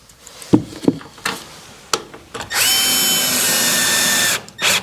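Power drill boring a pilot hole through plastic packers, running steadily with a whine for about two seconds before stopping, after a few handling clicks and knocks.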